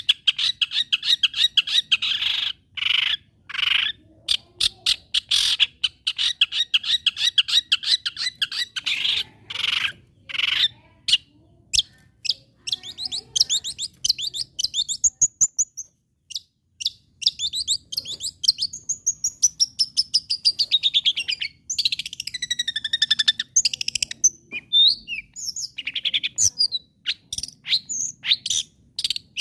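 Long-tailed shrike (cendet) singing: about ten seconds of rapid, harsh chattering, then a run of varied whistled phrases with notes sliding up and down.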